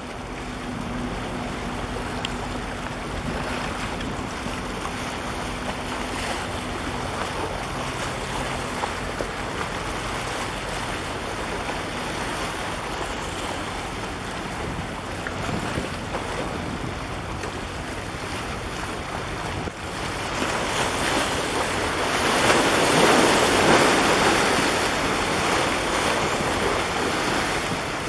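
Sea waves washing and splashing against concrete breakwater tetrapods, with wind buffeting the microphone. A faint low engine drone sits under the wash at first, and about twenty seconds in the waves surge louder against the blocks.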